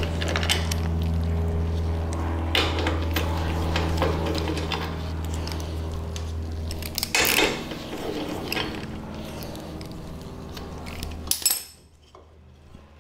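Socket ratchet clicking and metal clinking as the bolts are backed out of a VW swing-axle spring plate cover and the tool and bolts are set down, with a louder clank about seven seconds in. A steady low hum runs underneath and cuts off abruptly near the end.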